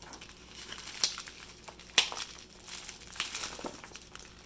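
Plastic packaging wrap crinkling and tearing as a package is unwrapped by hand, with two sharp crackles about one and two seconds in.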